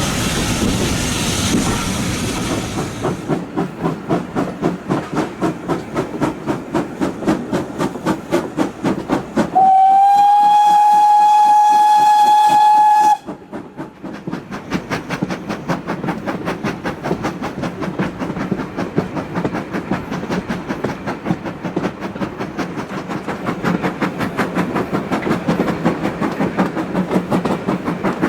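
Steam locomotive No. 9351, a 2-6-0, pulling away with its train. A hiss of steam comes first, then exhaust beats that quicken. A little before the middle comes one long steam-whistle blast of about three and a half seconds, and a fast, even beat runs on after it.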